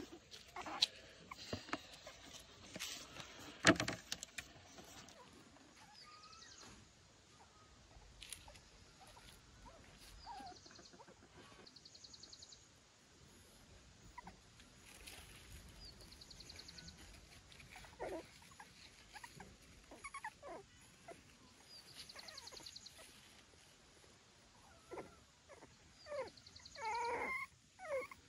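A dog whimpering and whining softly now and then, louder near the end, with a few sharp clicks in the first four seconds.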